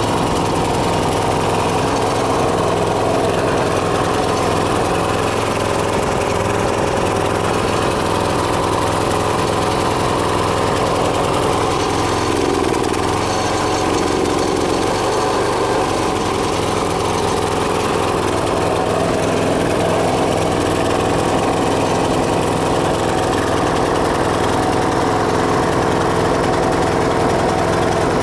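Small single-cylinder Briggs & Stratton engine on a motorized dump cart running steadily at idle.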